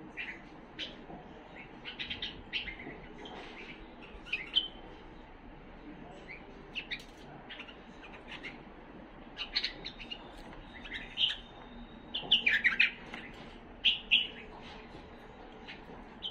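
Himalayan (white-cheeked) bulbul singing short bursts of chirping notes with gaps between them. The loudest phrases come about twelve to fourteen seconds in.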